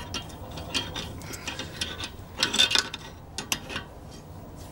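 Ratchet wrench clicking in short, irregular strokes as it tightens the forcing screw of a three-jaw gear puller, pressing the upper control arm's ball joint out of its knuckle. A quick cluster of clicks comes about two and a half seconds in.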